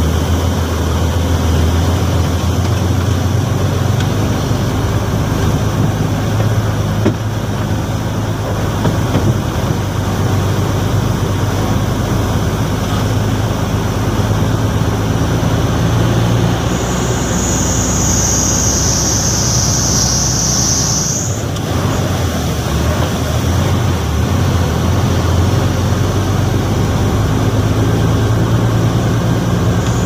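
Heavy diesel truck engine running steadily, heard from inside the cab while the truck drives slowly. A high hiss starts past the middle, lasts about four seconds and cuts off suddenly.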